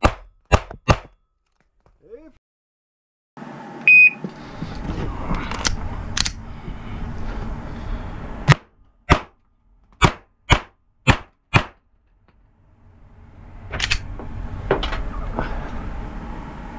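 Two pistol shots, a short silence, then a single electronic shot-timer start beep about four seconds in. About ten more shots follow, mostly in quick pairs, from an SPS Vista Star 2011-style open pistol firing 9mm major loads.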